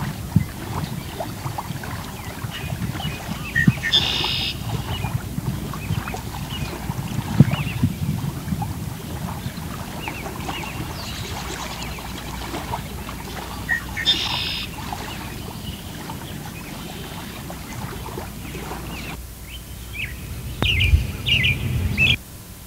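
Meditation nature recording of steadily flowing, lapping water, with birds chirping now and then.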